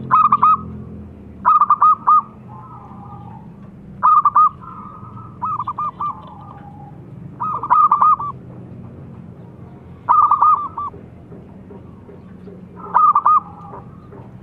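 Zebra dove (perkutut) cooing: short trilling runs of quick notes, about six in all, spaced two to three seconds apart, with fainter, lower cooing between them.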